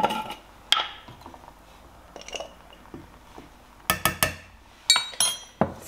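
A metal measuring spoon clinking and tapping against a stainless-steel saucepan as spices are added: a few scattered light clicks, then a cluster of sharper metallic clinks with a brief ring, about four to five and a half seconds in.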